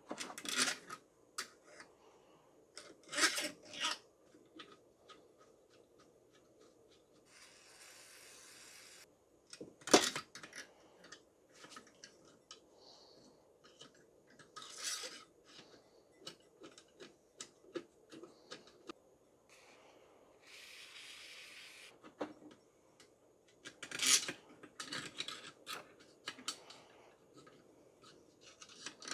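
Long steel screws clinking and scraping as they are slid through a pool pump motor's end bell and housing, with a sharp metallic click about ten seconds in. Two short hisses of aerosol lubricant spray come in between.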